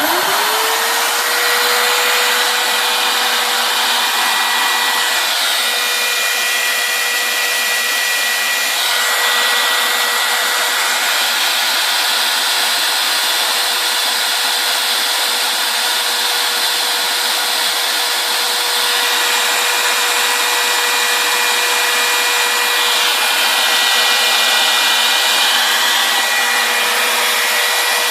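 RotoZip spiral-saw router on a homebrew CNC spinning up at once to a steady high-speed whine and running continuously as the machine resumes its cut.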